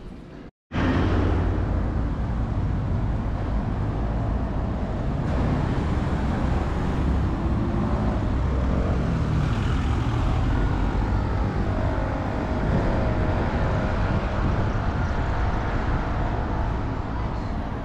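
Street traffic: cars driving past with a steady rumble of engines and tyres. It starts abruptly just under a second in, after a brief gap of silence.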